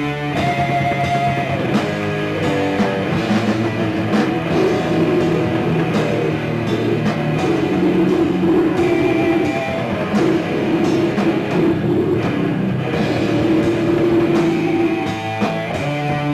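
Death metal band playing live: heavily distorted electric guitars and bass over a drum kit, a dense, continuous wall of sound heard from the audience.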